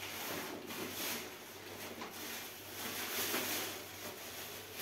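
Thin plastic shopping bags rustling and crinkling as groceries are rummaged for and lifted out, in uneven bursts of crackle.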